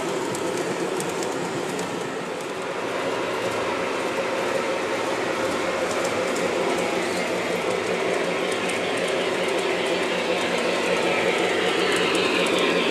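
Lionel O-scale model trains running on the layout's track: a steady electric motor hum with rapid clicking of wheels over the rails, growing louder toward the end as a diesel locomotive comes close.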